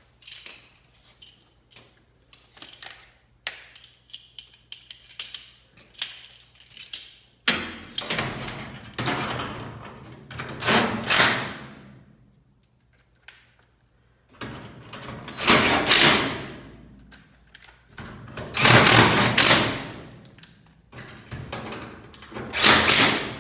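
Knocks and clicks of metal garage door hardware being handled, then several longer scraping, rasping noises from the door parts being worked, each rising and dying away over a second or two.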